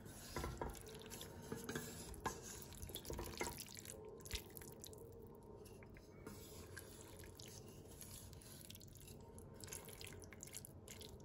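Wooden slotted spatula gently stirring cooked green beans in a stainless steel pressure cooker pot: faint wet scraping and light taps against the pot, busiest in the first few seconds.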